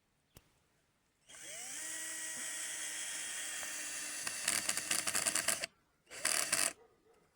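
Cordless drill-driver driving a wood screw into a board: the motor spins up about a second in and runs with a steady whine, turns rough and rattling as the screw bites in, stops, then gives one more short burst.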